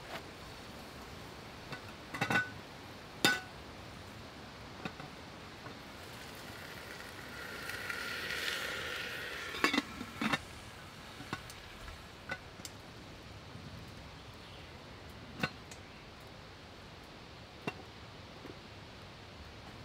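Metal camp cookware clinking and knocking as it is handled over a campfire: a series of separate sharp clinks, with a longer scraping sound around eight seconds in.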